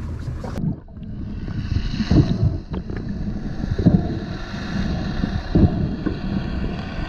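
Muffled underwater noise heard through a submerged camera, a steady dull wash with low thumps every second or two. For the first moment, before that, there is wind and boat noise above the water.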